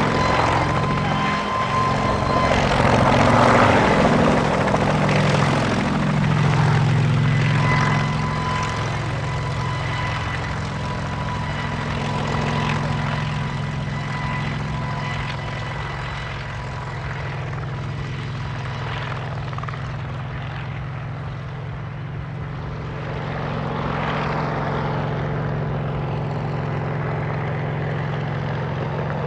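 Kamov Ka-26 helicopter in low flight, its two radial piston engines running with the beat of its coaxial rotors. The engine note wavers in pitch during the first several seconds, when it is loudest. It then fades somewhat and rises again near the end.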